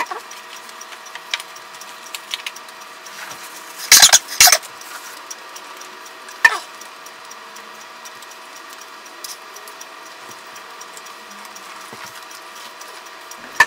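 Two loud, short burps about four seconds in, half a second apart, from a man stuffed with sliders. A single sharp sound follows about two seconds later, and a steady hum with a few fixed tones runs underneath.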